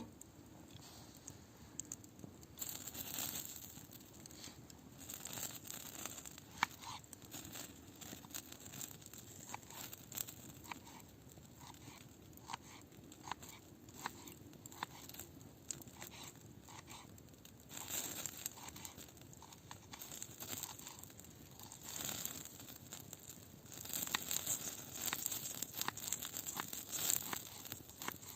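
Irregular crinkling and rustling, heard as repeated bursts with many small sharp clicks in between, louder in several stretches.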